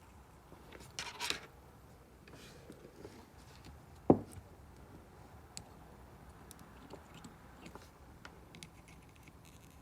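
Quiet handling noises of work at a soldering bench: scattered small clicks and scrapes, a short scraping rustle about a second in, and one sharp knock about four seconds in.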